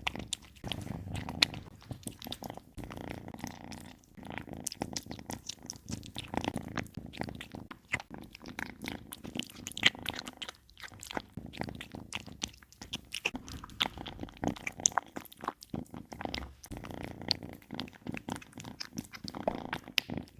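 Kittens chewing and crunching dry food, with many quick irregular crunches and bites.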